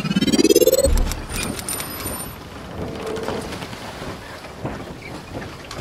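Logo intro sound effect: a rising swoosh that ends in a low thud about a second in, then a patter of small clicks over a thin high tone, fading into a steady hiss.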